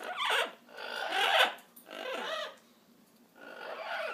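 Amazon parrot calling four times in a row, each call under a second long with a falling pitch.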